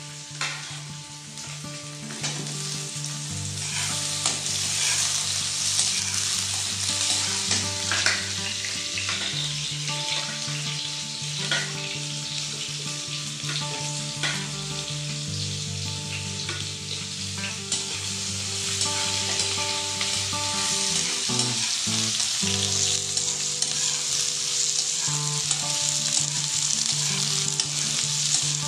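Chopped onions and carrot strips sizzling in hot oil in a steel wok, stirred with a metal spatula that scrapes and taps against the pan. The sizzle swells a few seconds in, once the onions are in.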